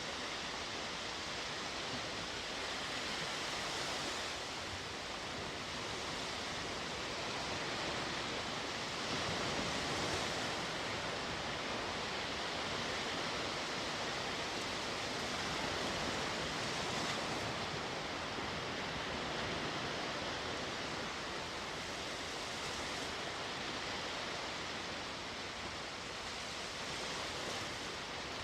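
Sea waves washing onto the shore: a steady wash of surf that swells gently every several seconds.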